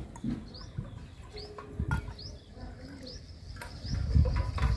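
Short high chirps repeating about twice a second from a small creature, probably a bird, with a few sharp clinks of a steel spoon against a steel bucket and cups, the loudest about two seconds in. A low rumble comes in near the end.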